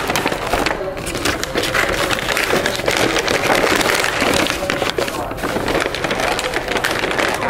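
Paper takeaway bag and its wrapping rustling and crinkling close up, with many small crackles, as hands open the bag and rummage inside it.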